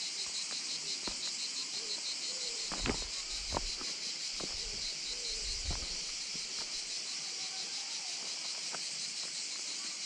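Steady high-pitched insect chorus. A few soft footsteps on the loose riverbed pebbles come between about the third and sixth second.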